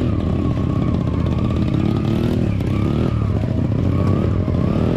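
Dirt bike engines revving, the pitch rising and falling unevenly as the bikes work through deep mud.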